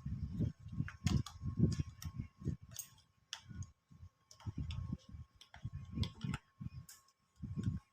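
Irregular clicks and light knocks, as of hands and tools handling a small appliance, over a faint steady high hum.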